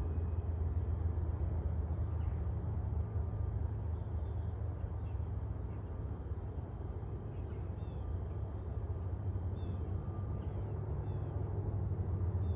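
Steady, unbroken insect chorus over a low rumble, with a few faint short chirps scattered through.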